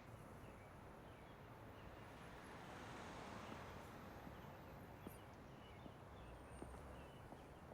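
Faint outdoor ambience: a low, even background hiss with scattered small chirps, likely distant birds, and a few light clicks.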